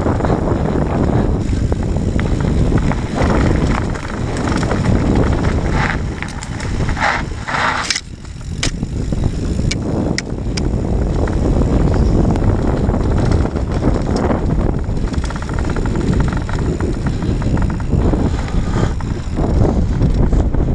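Mountain bike rolling fast downhill over a rough dirt-and-grass track: continuous wind buffeting on the camera microphone and tyre rumble, with a cluster of sharp rattles and clicks from the bike about six to ten seconds in.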